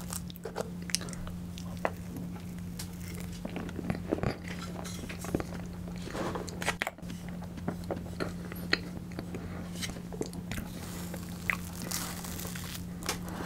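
Eating soft tiramisu cake: chewing with scattered short, sticky mouth clicks, over a steady low hum.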